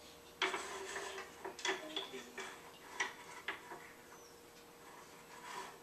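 Light clicks and knocks of wooden dollhouse pieces being handled, a quick cluster of taps in the first few seconds that then tails off.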